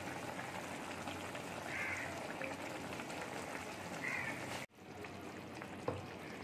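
Fish curry simmering in a pan with a steady bubbling hiss, while crows caw now and then in the background. The sound drops out for an instant about two-thirds of the way through, and a single light knock follows near the end.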